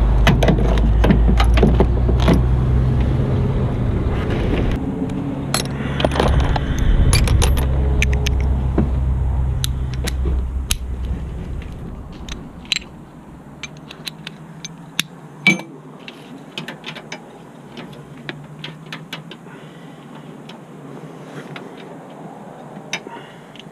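Irregular metallic clicks and clinks of a 13mm wrench and fittings as an A/C hose is attached to the condenser, over a low steady rumble that fades out about halfway through.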